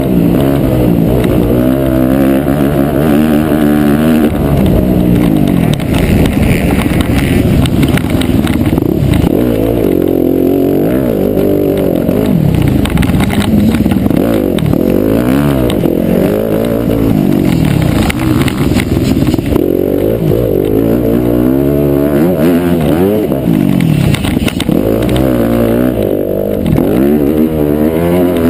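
Dirt bike engine revving hard, heard from on board the bike, its pitch climbing and dropping again and again as the rider accelerates and backs off around the track.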